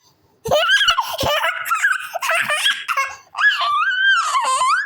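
A young child laughing and squealing at a very high pitch, starting about half a second in, with a short break a little after three seconds.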